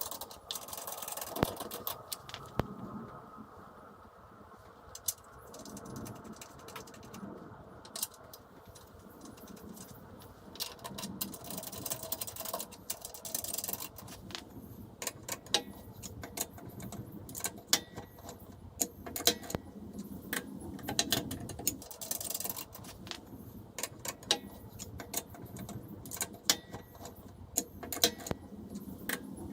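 Irregular sharp metallic clicks and clanks of hand tools at work, with a few short stretches of hiss.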